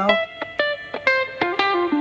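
Background music: a plucked guitar playing a quick melody of single ringing notes, about five a second.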